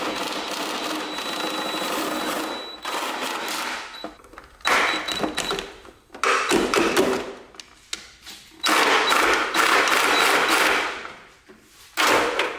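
DeWalt 20V cordless drill boring through the car's sheet-metal body, run in several long bursts with short pauses between them.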